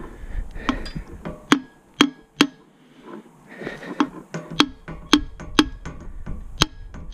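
Light hammer taps on the cast aluminium crankcase cover of a Briggs & Stratton lawn tractor engine, to break the bolted-off cover loose from its gasket. A string of sharp, separate metal taps, irregularly spaced, each with a short ring.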